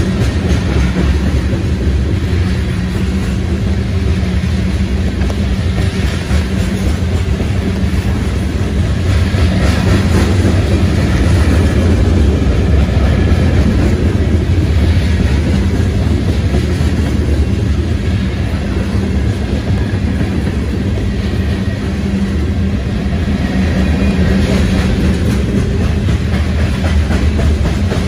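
Freight train's covered hopper cars rolling past close by: steady rumble and clatter of steel wheels on the rails.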